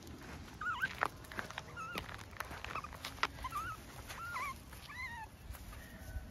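Puppies chirping: a run of short, high, wavering whimper-chirps, one after another for about five seconds, mixed with scattered sharp clicks of footsteps on the gravel track.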